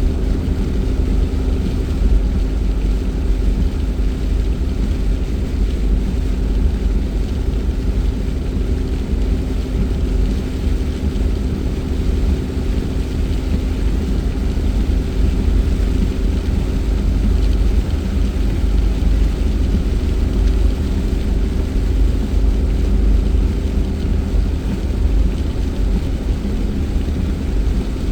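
Steady engine drone and road rumble of a car being driven, heard from inside the cabin, with a deep rumble and a few steady humming tones that hold even throughout.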